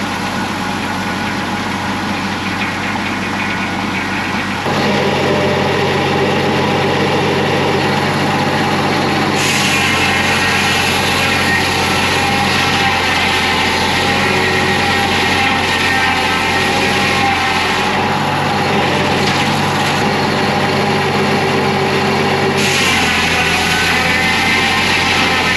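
Homemade bandsaw sawmill running: a steady engine-driven machine sound with a constant pitch. It grows louder and shifts in tone abruptly a few times, as the load on the mill changes.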